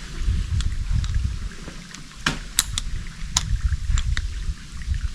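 Uneven, gusting low rumble of wind buffeting the camera microphone, with a handful of sharp clicks about two to four seconds in.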